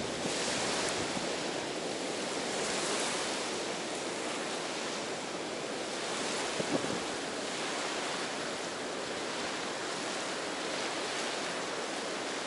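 Ocean surf washing on a beach: a steady rushing wash that swells and eases, with surges about a second in and again about three seconds in.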